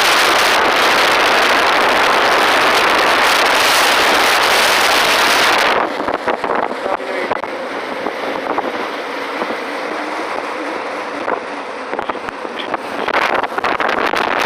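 Car driving through a snowstorm: a steady, loud rush of wind and road noise. The rush drops suddenly about six seconds in to a lower, duller level and rises again near the end.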